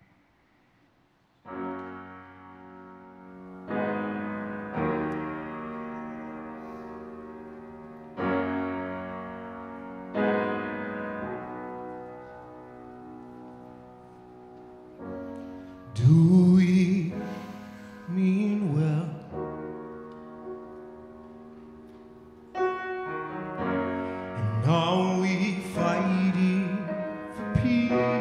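Grand piano playing slow chords, each struck and left to ring. From about halfway a man's voice joins with wordless sung lines over the piano, and these lines are the loudest part.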